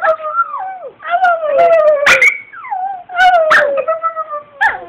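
Brussels Griffon howling: a run of about five high, falling howls, each roughly a second long and starting with a sharp yip.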